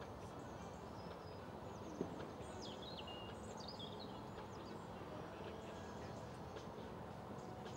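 A horse's hoofbeats, muffled on the sand of a dressage arena, over a steady outdoor hiss. A single sharp click comes about two seconds in, and a few bird chirps follow just after it.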